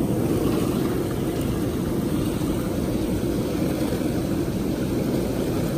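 Hot tub jets running, a steady churning and bubbling of water with a pump's rumble underneath.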